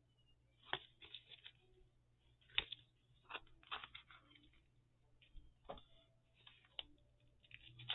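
Faint, irregular ticks and rustles of paper pages being handled while a needle and linen thread are worked through them in a pamphlet stitch. The two sharpest ticks come just under a second in and about two and a half seconds in.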